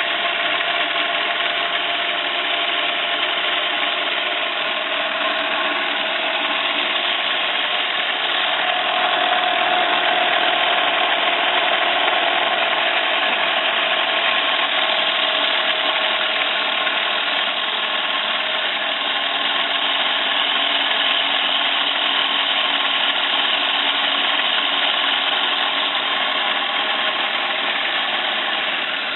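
1-inch scale live-steam Fowler ploughing engine model running, a steady mechanical noise that continues without a break.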